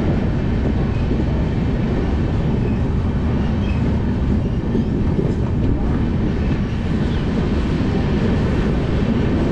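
Indian Railways passenger coach rolling out of a station, with a steady low rumble of wheels on the track.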